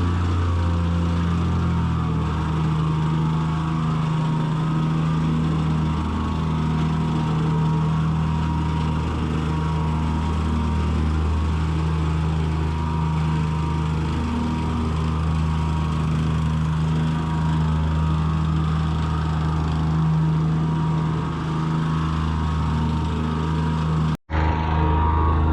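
Heavy machinery engine running steadily at a constant speed. The sound drops out for an instant about a second before the end.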